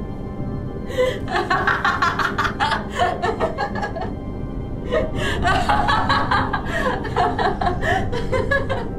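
A woman laughing in two long, rapid, breathy fits, the first starting about a second in and the second about five seconds in, over a low, steady background music drone.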